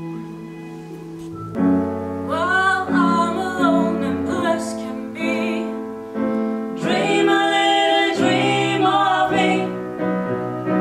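A woman singing with vibrato over piano accompaniment; the piano plays alone at first and the voice comes in about a second and a half in, singing in phrases with short pauses.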